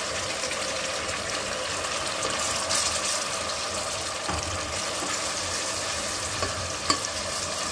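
Chopped onions and spice marinade sizzling in hot oil in a stainless steel pot, a steady frying sound, while a silicone spatula stirs them. A brief click near the end.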